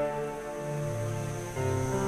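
Background music: soft held chords that shift a few times.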